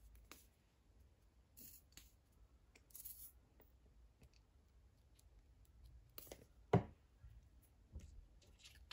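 Faint clicks and light handling noises as tweezers and a plastic glue bottle are used on a small paper heart, with one sharper tap about two-thirds of the way through.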